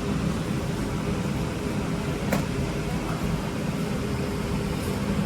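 A steady low mechanical hum, with one sharp click a little over two seconds in.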